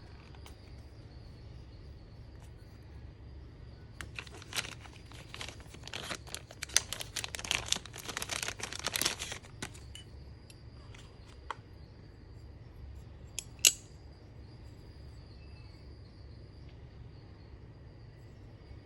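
Knife packaging being unwrapped: a few seconds of dense crinkling and tearing of wrapping, followed by a few scattered light clicks and one sharp click. A low steady hum underlies it throughout.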